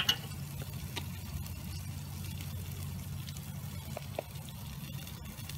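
Sauce-glazed pork chops sizzling on a charcoal grill, a faint hiss with scattered small crackles over a steady low hum. A single sharp clack right at the start.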